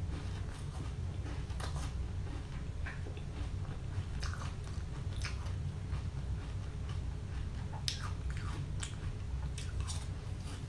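Hard pink-coloured ice being bitten and chewed: irregular sharp crunches and cracks, over a steady low hum.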